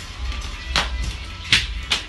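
Background music with three sharp slaps, the loudest about halfway through, from children's hands striking a wooden bench during an exercise routine.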